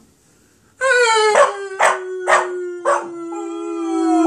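Border Collie puppy howling: after a short pause, one long drawn-out howl that starts about a second in and sags slightly in pitch, broken by four harsh rasping spurts about half a second apart. It has a grating rasp, like rusty nails in a blender.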